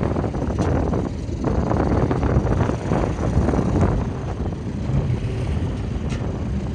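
Strong wind of about 33 mph buffeting the microphone in gusts, over water rushing and splashing along the hull of a small sailing dinghy, with a few faint sharp ticks.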